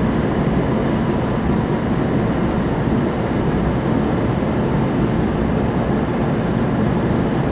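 Steady running noise inside a JR Kyushu 800 series Shinkansen car at speed: an even low rumble that does not change.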